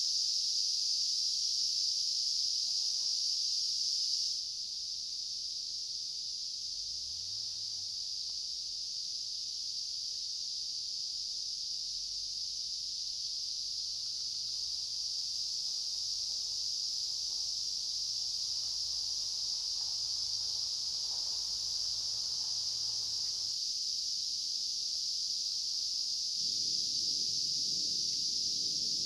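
A steady, high-pitched chorus of summer insects, an unbroken shrill drone that drops a little in level about four seconds in.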